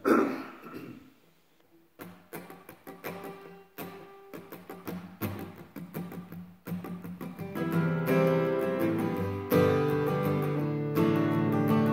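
Steel-string acoustic guitar: separate picked notes and chords begin about two seconds in and fill out into steady strummed chords from about eight seconds in. A short loud sound comes at the very start.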